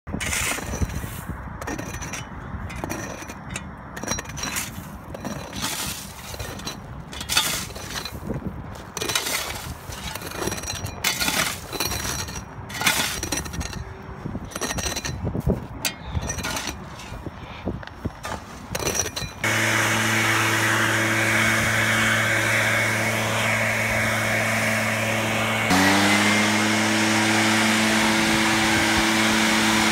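Shovel and scraper blades scraping and chopping loose gravel off a tar roof: irregular scrapes and knocks. About two-thirds of the way in, a leaf blower takes over, running steadily, and its pitch steps up once a few seconds before the end.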